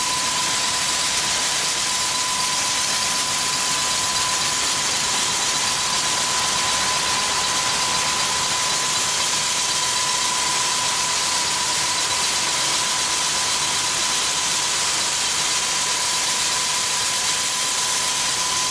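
Akyurek seed gravity separator running with a bean load: a steady, loud rushing noise from its fans and vibrating deck, with a steady high-pitched whine over it.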